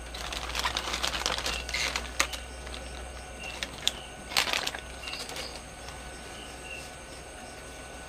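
Plastic handling: the plastic power-bank case and its clear plastic bag crinkle and rustle, with sharp plastic clicks as the case's lid is worked off, busiest in the first two seconds and again briefly about four seconds in. Crickets chirp faintly in the background.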